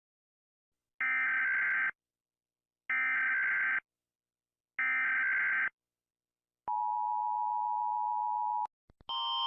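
Emergency Alert System SAME header: three bursts of digital data tones, each about a second long with a second's gap, then a steady attention tone for about two seconds. A louder multi-tone alarm sound starts just at the end.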